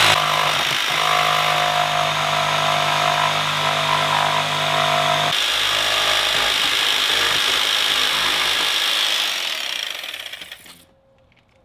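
Jigsaw running and cutting, shaving material off along the side of a speaker mounting opening to make room for a larger speaker basket. Its tone shifts about five seconds in, and it winds down and stops near the end.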